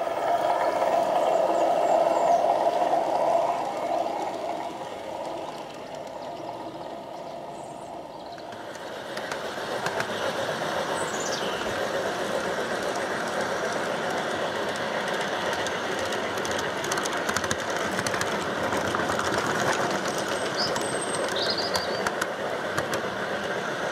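G-scale model train, a small steam-outline locomotive hauling a string of stone-loaded tipper wagons, running on garden track: a steady whirring rumble of motor and wheels with quick clicks over the rail joints. A louder hum at the start fades away and the rolling sound builds again at about nine seconds. A bird chirps a few times.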